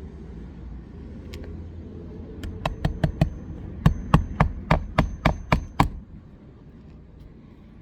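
Hammer blows during a roof shingle repair, about a dozen sharp strikes in quick succession, roughly three or four a second, starting a couple of seconds in and stopping about two seconds before the end.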